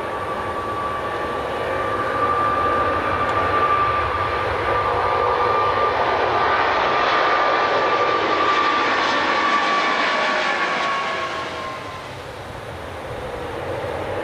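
Jet airliner passing close by: a steady high engine whine over a loud rush of jet noise that swells for several seconds, then fades about twelve seconds in as the whine drops slightly in pitch.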